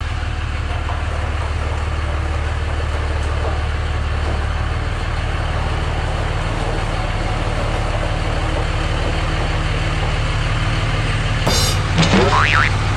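2005 Dodge Ram 2500's 5.9-litre Cummins inline-six turbo-diesel idling steadily, its note shifting about five seconds in. Near the end, a sharp click and then a quick rising whine.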